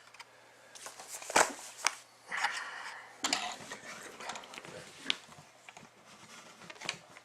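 Hands handling trading-card boxes and packs: a few sharp knocks and short rustles of cardboard and wrapping.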